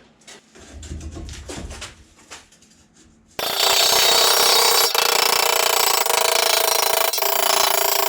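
A few light handling clicks and knocks, then about three and a half seconds in an electric welder strikes an arc on sheet steel and runs as a loud, steady crackling buzz, a weld being laid on a repair flange.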